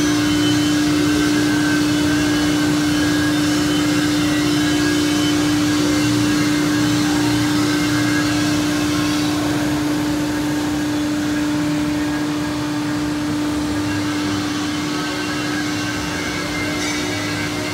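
Hydraulic power unit of a Samco Strong TC-75 cutting press running steadily: a constant hum with one strong, unchanging tone over a broad machine drone, easing a little in level near the end.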